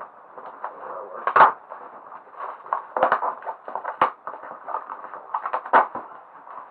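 A cardboard parcel being cut and pulled open by hand with small children's scissors: uneven scraping and rustling of the packaging, with several sharp clicks and knocks.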